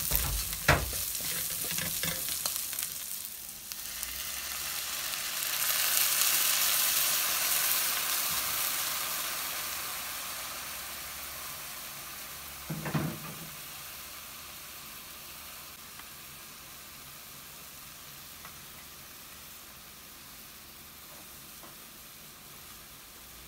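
Garlic and onions sizzling in oil in a wok, with a metal spoon knocking against the pan at the start. About five seconds in the sizzle flares up loudly as liquid sauce hits the hot pan, then slowly dies down as water is poured in, with one more knock of the spoon about halfway.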